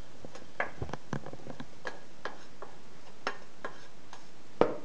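Wooden spoon knocking and scraping against a nonstick frying pan as the contents are scraped out: a string of irregular light clicks, with one louder knock near the end.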